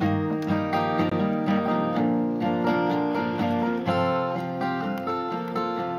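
Acoustic guitar being strummed steadily, the instrumental introduction to a song before the vocal comes in.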